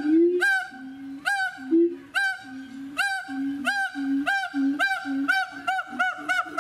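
Baby macaque screaming over and over in distress, short arched cries that repeat about twice a second and then faster, about three a second, near the end.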